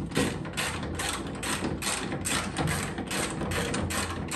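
Hand ratchet wrench being worked in quick strokes, a steady run of sharp clicks at about four a second, as nuts are run down while a power brake booster is mounted.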